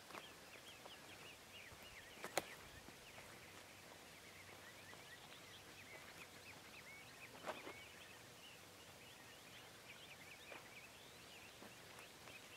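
Faint chorus of small birds chirping, many short high notes throughout, with two sharp clicks, about two seconds in and again past seven seconds.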